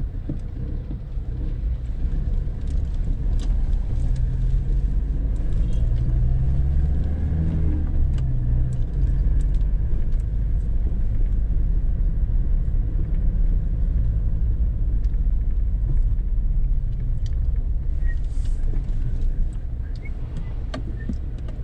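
Car engine and road rumble heard from inside the cabin while driving. The engine note rises and falls about seven seconds in, with scattered light knocks and rattles over the road.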